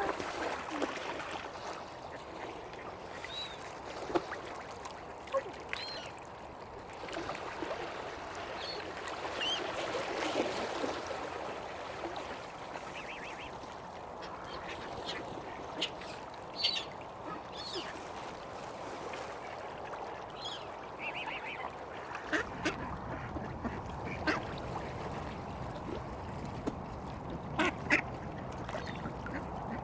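Mallard ducks quacking now and then, with short higher-pitched bird calls scattered through, over a steady background noise.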